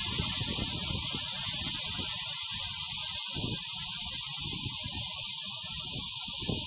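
Air hissing steadily out of a car tire's valve stem, held open by a chrome valve tool while the tire is aired down.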